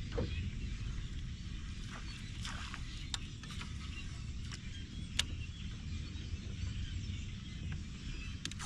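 Steady low outdoor rumble with a faint hiss, broken by a few short, sharp clicks scattered through, as a bait is cast and worked from a bass boat.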